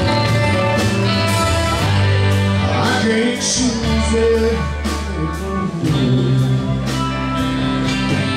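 A live rock band playing: electric guitar, bass guitar, a drum kit keeping a steady beat, and saxophone.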